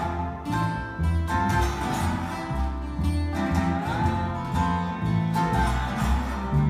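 Acoustic guitar playing a country-style instrumental passage of the song: steady strummed chords over a picked bass line, with a melody line that slides between notes.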